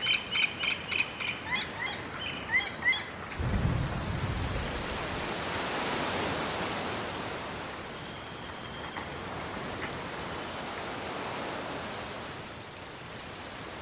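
Layered outdoor ambience: quick high bird-like chirps, then a low rumble about three and a half seconds in. A broad rush of noise swells and slowly fades, with two short high trills in the middle.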